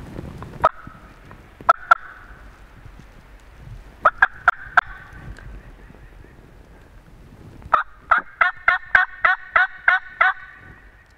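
A series of turkey yelps: a single note, a pair, then four quick notes, and near the end a longer, evenly spaced run of about ten yelps at roughly four a second.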